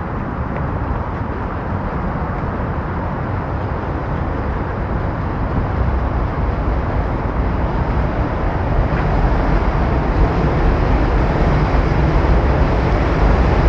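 Steady rumble of vehicle noise, growing louder about halfway through.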